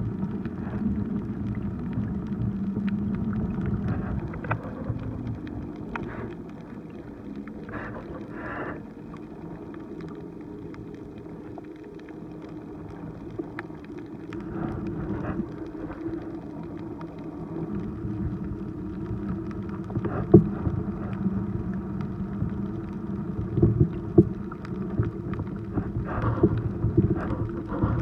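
Muffled underwater rumble and water noise heard below the surface, with scattered clicks and knocks and a few brief bubbly rushes.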